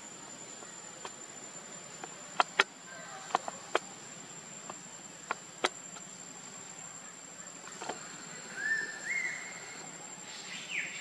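A crinkly dry leaf crackling in a string of sharp clicks as a baby macaque grips and handles it, over a steady high insect drone. Near the end come a few short, high squeaks.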